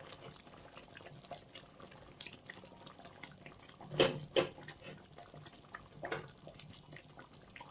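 Thick masala gravy simmering in a pan with small bubbling pops as pieces of mackerel are laid into it. There are louder wet plops about four seconds in and again near six seconds.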